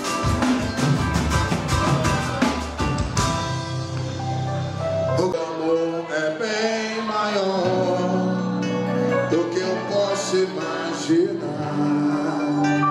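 Music: a band with a steady drumbeat for about the first three seconds, then the drums drop out and a voice sings over held chords.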